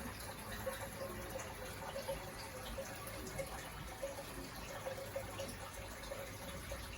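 Water trickling and dripping steadily in a fish tank, with a faint steady hum underneath.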